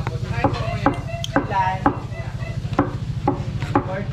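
Cleaver chopping boiled meat on a thick wooden chopping board, about two to three strikes a second, over a steady low hum.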